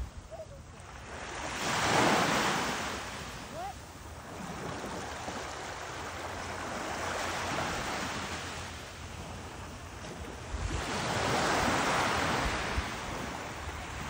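Small waves breaking and washing up on a sandy shore, swelling twice: about two seconds in and again around eleven seconds. Wind rumbles on the microphone throughout.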